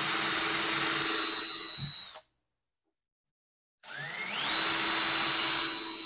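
Electric drill with an eighth-inch bit drilling screw holes in a PVC pipe: two runs of about two and a half seconds each, with a short silence between. On each run the motor's whine rises as it spins up and then holds steady.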